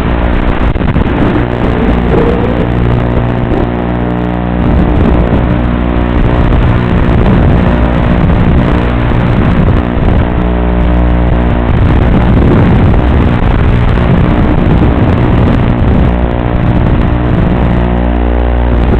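FPV quadcopter's brushless motors and propellers buzzing loudly as it flies, picked up by its own onboard microphone. Several steady motor tones overlap, swelling and dipping a little with the throttle.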